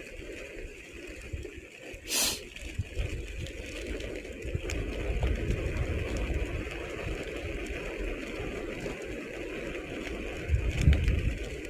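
Skateboard wheels rolling fast downhill on pavement: a steady rumble with a hiss over it, a brief sharp scraping hiss about two seconds in, and a louder rumble near the end.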